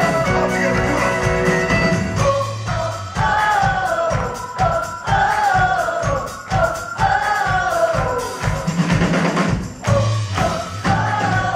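Live band playing a song: a drum kit keeps a steady beat under acoustic guitar and bass, with a lead melody line that slides up and down.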